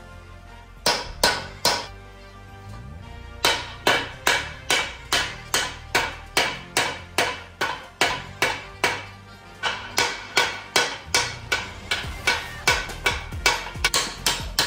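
Hand hammer striking metal on metal, knocking the old upper control arm bushing out of a Ford 8.8 rear axle housing. The blows ring sharply: three about a second in, then a steady run of roughly two to three strikes a second.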